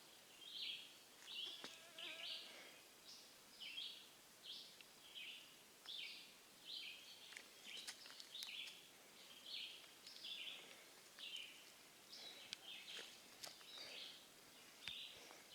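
Faint woodland birdsong: short high calls repeating over and over, roughly every half to one second, with a few soft clicks late on.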